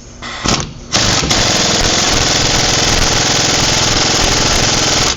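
Impact wrench with a chrome socket hammering on a hub bolt: a brief burst, then a steady run of about four seconds. It runs the bolt home.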